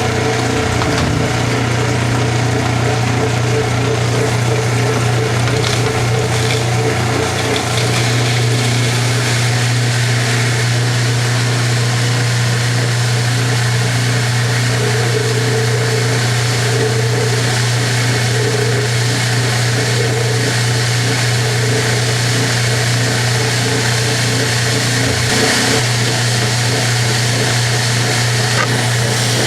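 Washing machine running with its cabinet removed, so its motor and drive are heard bare: a loud, steady mechanical hum and rattle that holds even throughout.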